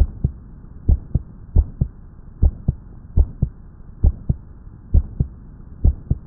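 Normal human heart sounds, a steady lub-dub of paired beats at about 72 a minute. Each first heart sound is followed by a single, unsplit second heart sound, the aortic and pulmonic valves closing together.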